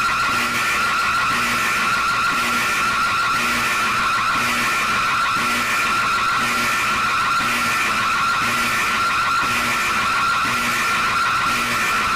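A loud, harsh emergency-alert alarm tone holding steady, with a low pulse beating about one and a half times a second underneath.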